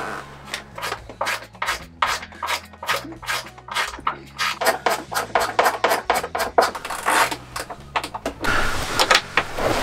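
Hands working plastic trim and fittings: a dense, irregular run of clicks, taps and rubbing scrapes.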